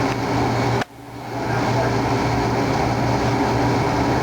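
Haas CNC lathe running steadily while machining an aluminium workpiece: a continuous whirring machine hum with a low steady tone. The sound cuts out abruptly just under a second in and builds back up within about half a second.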